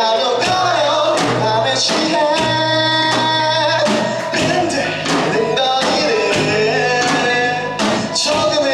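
Live rock band playing a song, a sung vocal line over guitars and keys, with drums hitting about twice a second.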